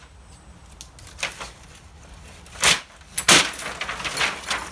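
A few sharp knocks and rattles, like hard parts being handled, with lighter clattering near the end.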